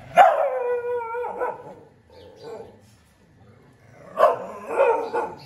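Street dogs barking at each other in a territorial standoff. One long drawn-out bark opens, followed by a cluster of sharp barks about four seconds in.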